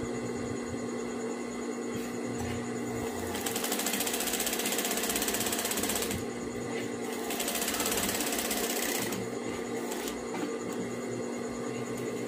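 Industrial sewing machine stitching a seam in two runs, one starting about three seconds in and one about seven seconds in, each a fast, even clatter of the needle. A steady hum lies under it throughout.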